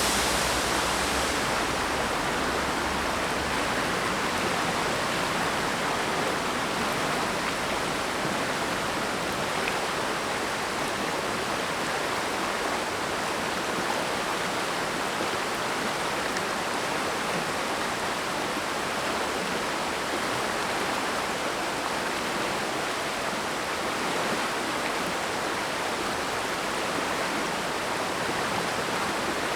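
Mountain stream rushing, a steady, even wash of flowing water.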